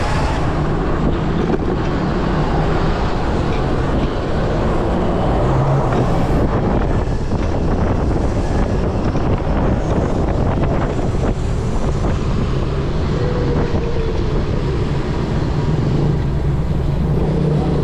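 Wind rushing over the microphone while riding an electric motorbike through city traffic, a steady loud rumble with road and traffic noise mixed in.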